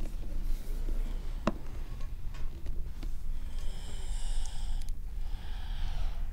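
A person breathing out slowly through the nose twice, each breath about a second long, over a steady low hum, with a single sharp click about a second and a half in.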